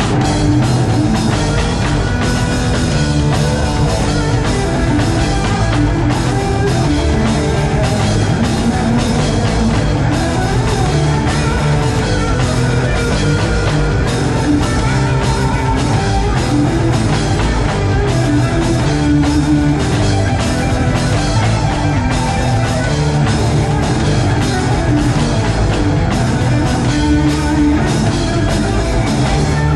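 Rock band playing live at full volume: drum kit with electric guitars, the drums keeping a steady beat throughout.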